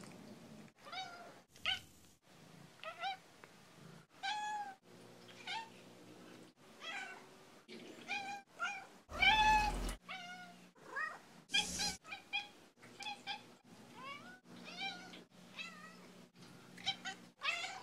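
A domestic cat meowing over and over: a quick string of short meows spliced together with abrupt cuts between them. One longer, louder meow comes about nine seconds in.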